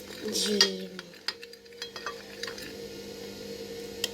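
A spoon clinking and scraping against a dish in a few scattered light clicks, with a steady low hum underneath.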